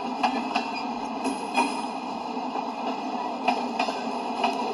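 Freight cars of a manifest train rolling past: a steady rumble of wheels on rail, broken by sharp clicks every second or so, several of them in pairs.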